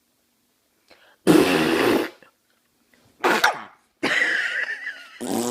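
A loud fake fart noise about a second in and a shorter one at about three seconds, then a Jack Russell terrier reacting with a falling whine and a growl near the end.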